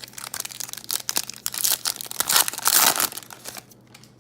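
A trading-card pack wrapper crinkling and crackling as it is torn open and handled, loudest about two to three seconds in and dying away near the end.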